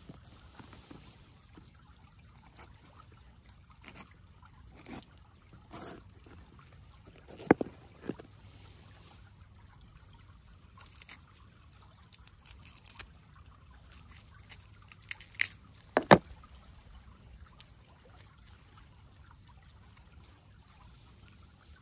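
Faint trickle of water with scattered knocks and clicks, the loudest two about 7.5 and 16 seconds in.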